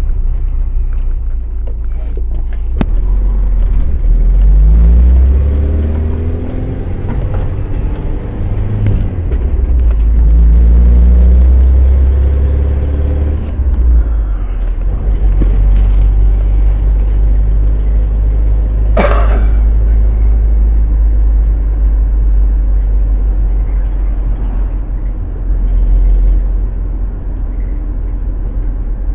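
Road traffic: motor vehicles running past with a heavy low rumble, an engine's pitch rising as it accelerates a few seconds in and again around the middle, and one short sharp hiss about 19 seconds in.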